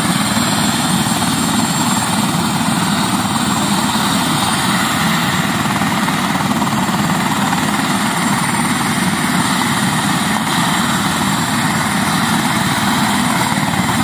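Helicopter with a shrouded fan (Fenestron) tail running on the ground, its engine and rotor giving a loud, steady whine and rush that holds one pitch throughout.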